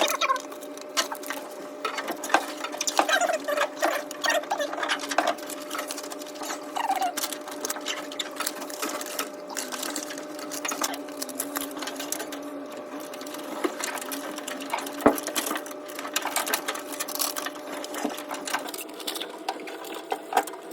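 A small motor running steadily, with many irregular clicks and scrapes over it.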